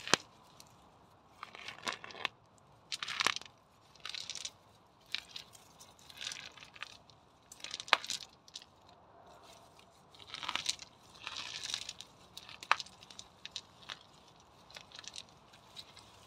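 Weeds being pulled by hand from a bed of river pebbles: irregular rustling and crunching as stems and roots come out of the ground, with a few sharp clicks of pebbles knocking together.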